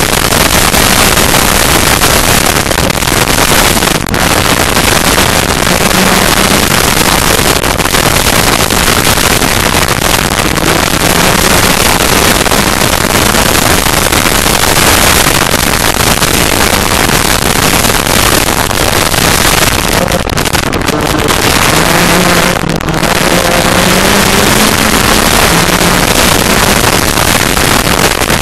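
Yamaha side-by-side's engine at racing speed on dirt, heard from the cockpit under a loud rushing noise of wind and gravel; the engine pitch rises and falls with the throttle, dropping briefly a few times as the driver lifts for corners.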